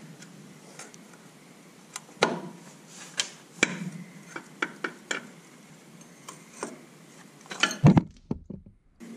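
Open-end wrench clinking against the steel hydraulic line fittings on a mini excavator's final drive motor: a scatter of sharp metallic clicks, with a louder knock near the end.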